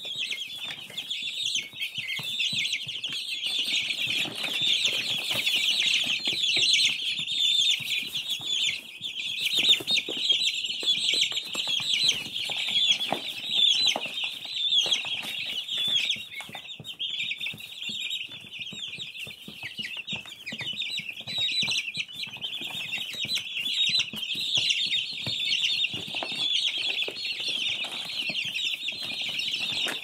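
A brood of newly hatched chicks peeping all at once: dense, continuous, high-pitched chirping with no break, over faint scuffing clicks.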